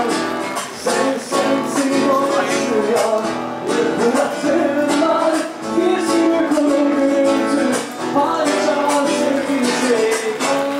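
Music with a strummed acoustic guitar keeping a steady rhythm under a wavering melody line.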